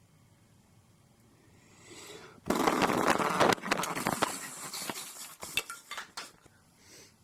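A sudden loud clatter of many hard objects hitting and rattling, starting about two and a half seconds in and dying away over about three seconds.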